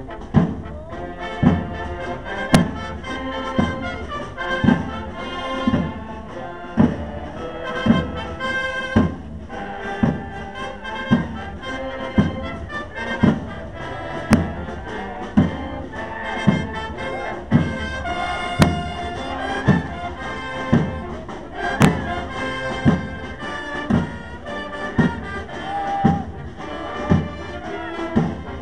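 Brass band playing a military march, with heavy drum beats about once a second.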